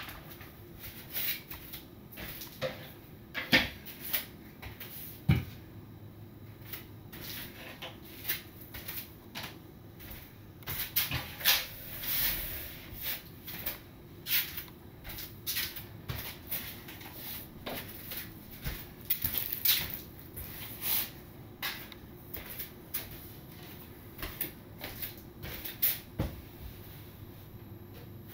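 Household handling sounds of a room being tidied: a string of irregular light knocks, clicks and rustles as objects are picked up, moved and set down on a table and tatami floor.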